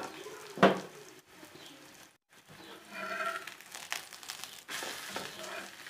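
Cooking sounds at a hot tawa as a paratha is pressed and roasted: a sharp clack of the utensil against the griddle about half a second in, then soft crinkling and scraping.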